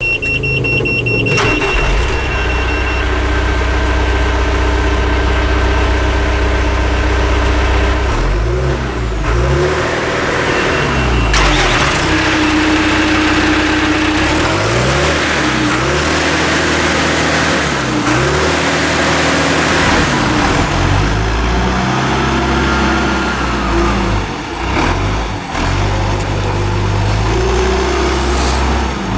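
John Deere 310SE backhoe loader's diesel engine running, with a steady high tone over it for the first few seconds. Through the middle the engine pitch rises and falls over and over, as it revs and takes hydraulic load.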